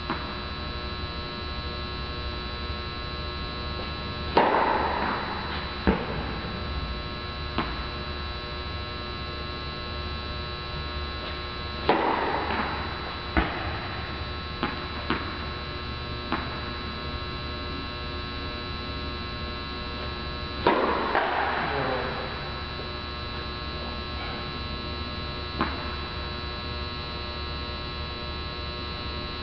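Three loud racquet strikes on flat tennis serves about eight seconds apart, each ringing briefly through a large hall, with a few fainter knocks of the ball in between. A steady electrical mains hum runs underneath.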